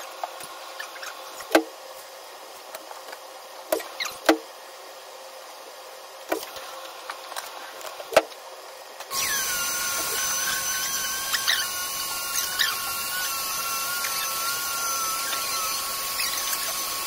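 Several scattered knocks and clicks, then a vacuum cleaner switched on about nine seconds in, its motor running steadily with a slightly wavering whine.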